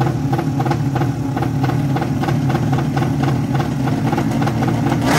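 Drag-race motorcycle engines idling at the start line, a steady, fast pulsing throb with no revving.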